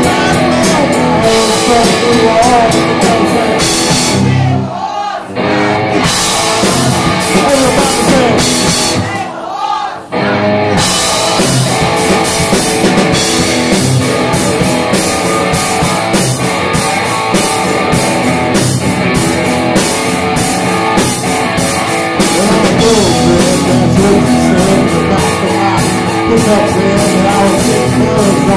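Live rock band playing loud, with guitar, drum kit and a man singing. The band briefly cuts out twice, around five and ten seconds in.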